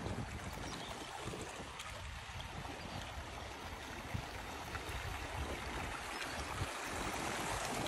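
Shallow meadow stream rushing and gurgling over stones in its channel, a steady wash of water, with wind gusting on the microphone underneath.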